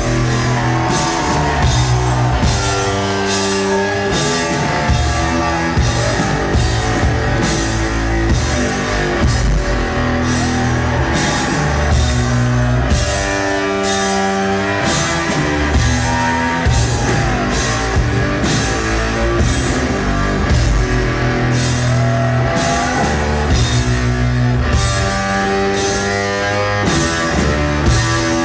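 Live blues-rock duo: electric guitar riffing over a steady drum kit beat in an instrumental passage, with no singing.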